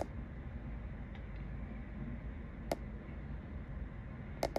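Distant city and river ambience: a steady low rumble, broken by a few sharp ticks, one at the start, one a little before three seconds in and two close together near the end.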